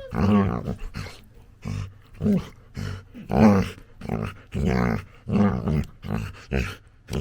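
Labrador puppy making a steady string of short rumbling play growls, about a dozen in a row, each a brief pitched grunt with a gap between.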